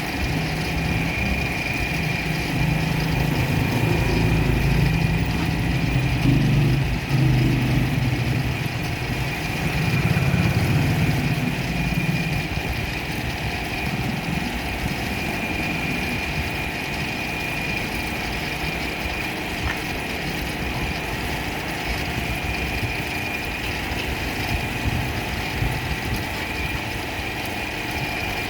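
An electric motor hums steadily as it runs, with a constant high whine over it. A heavier low rumble comes in from about three seconds to about twelve seconds in.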